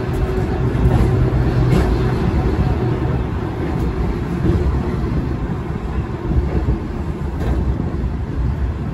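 Volk's Electric Railway car running along its track, heard from on board: a steady low rumble, with a faint hum over it that fades out after about three seconds.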